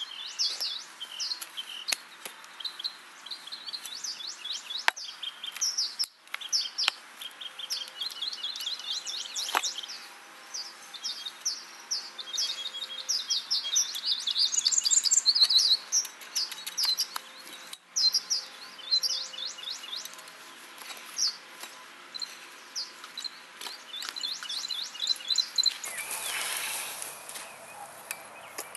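Songbirds chirping, many short high notes repeated in quick runs. A brief rush of noise comes near the end.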